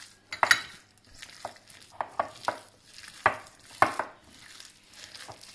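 A bare hand squeezing and stirring chopped onions, green chillies and coriander into a wet ground rice-and-tomato batter in a glass bowl. It makes a run of short, irregular squishing and clicking sounds, about a dozen in all.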